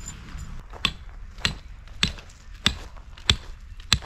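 Tent stake being driven into the ground with a hammer: six sharp, evenly spaced strikes, about one every 0.6 seconds, starting a little under a second in.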